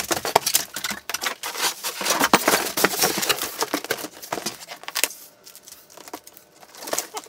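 A mitre saw being handled in its cardboard box and polystyrene packing, and the box flaps being closed: a dense run of rustles, scrapes and knocks for about five seconds, then a few quieter clicks and rustles near the end.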